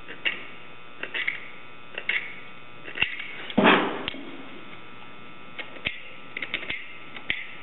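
Razor knife scraping and clicking against the tape-covered rubber toe cap of a canvas sneaker while excess tape is trimmed away to expose the rubber, in short scrapes and clicks with one longer, louder scrape about three and a half seconds in. A steady electrical hum runs underneath.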